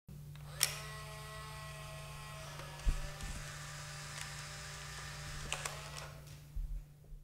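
Instax Mini instant camera taking a picture: a sharp shutter click about half a second in, then the camera's small motor whirring as it pushes the print out, with more clicks along the way and a steady low hum.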